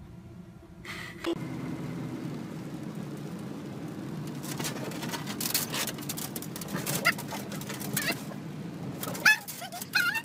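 Steady road noise inside a moving car, starting about a second in. Over the last few seconds a dog whines in short, high, wavering whimpers.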